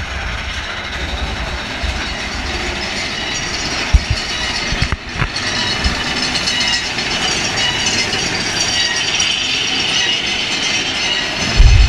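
Roller-coaster mine-train cars rolling along the track with a steady rattling clatter and a couple of sharp knocks about four and five seconds in. A deep rumble starts just before the end.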